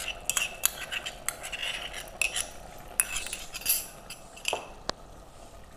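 Metal spoon clinking and scraping against a small bowl and the pressure cooker while ginger-garlic paste is scooped out onto raw mutton: a run of light clinks over the first few seconds, with a couple more sharp clicks about four and a half seconds in.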